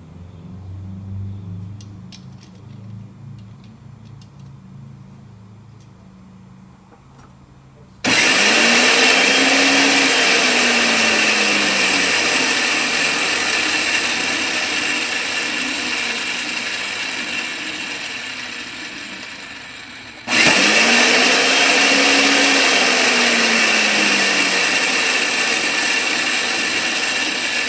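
Electric power vise motor running as it spins a reusable hydraulic hose socket onto the outside of a cloth-covered hose. It starts suddenly about eight seconds in and again about twenty seconds in, once for each end of the hose. Each run is a steady whine under a low hum that rises and then falls, and it eases slowly as the socket threads on. A few light handling clicks come before the first run.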